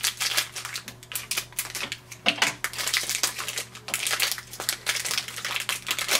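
Foil ink-cartridge pouch crinkling as it is cut open with scissors and pulled apart, a dense irregular run of crackles and rustles.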